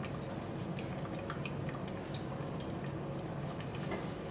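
Canned tomatoes in their juice being scraped from a bowl into a pot of broth with a silicone spatula: faint wet drips and small scattered plops.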